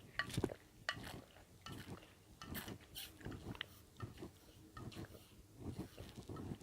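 A person chewing salad with the mouth open, faint wet smacks and clicks coming at an irregular pace.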